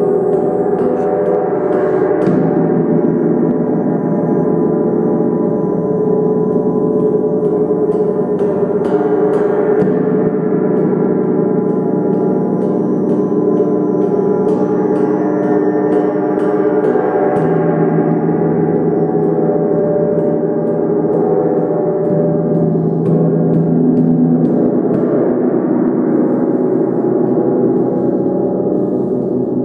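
A 40-inch Mother Tesla gong played with a felt mallet. Soft, repeated strokes keep up a dense, sustained wash of many overlapping tones that swells again every several seconds.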